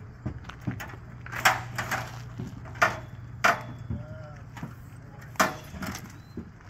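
Irregular sharp knocks and clanks, about half a dozen, from work on a high tunnel's steel arch frame, over a steady low hum.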